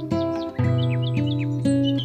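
Calm instrumental background music with plucked, guitar-like notes changing about twice a second, and short, high, falling bird chirps layered over it during the first second or so.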